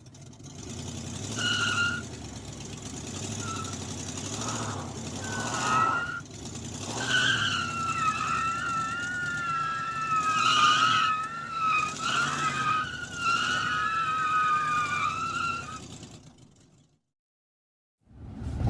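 Car tyres squealing in a skid over the running engine: a few short squeals, then a long wavering squeal that fades out to silence near the end.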